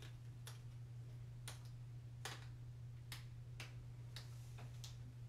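A few light, irregularly spaced ticks and taps from tilting a wet, paint-covered canvas by hand, over a steady low hum.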